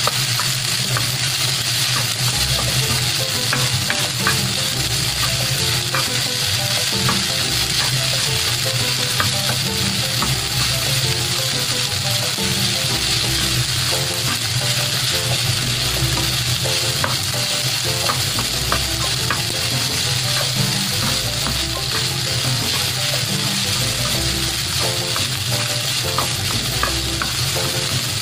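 Garlic brown rice sizzling in a nonstick pan as a slotted spatula stirs and turns it. A steady sizzle runs under frequent light scrapes and taps of the spatula against the pan.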